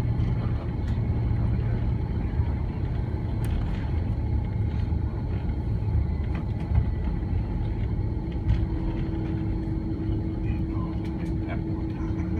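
Cabin noise of an Airbus A330-300 rolling on the ground after landing: a steady low rumble of engines and wheels with scattered small rattles and clicks. A steady hum joins in about two-thirds of the way through.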